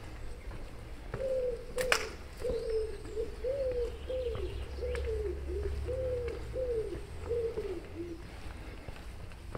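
A pigeon cooing: a run of about ten short, arched coos, one after another, starting about a second in and stopping about eight seconds in. A single sharp click sounds near two seconds in, over a low steady rumble.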